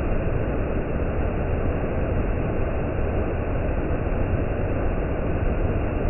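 Waterfall rushing: water pouring over shale ledges in a steady, unbroken wash of noise.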